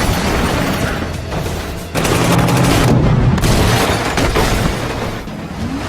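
Action-movie soundtrack: loud dramatic music under heavy booming impacts, which rise in intensity about two seconds in, with a few sharp hits scattered through.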